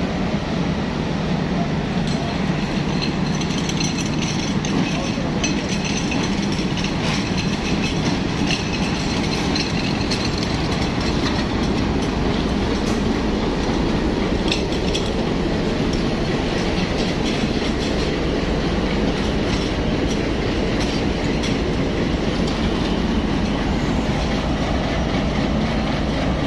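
Pakistan Railways PHA-20 2000 hp diesel locomotive running with a steady low engine rumble, heard up close beside the locomotive, with a few scattered metallic clanks.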